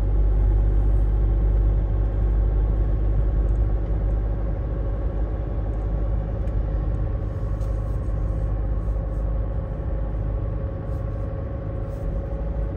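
Road noise inside a moving vehicle: a steady low rumble of engine and tyres on the road, with a faint steady whine above it, easing off slightly in the second half.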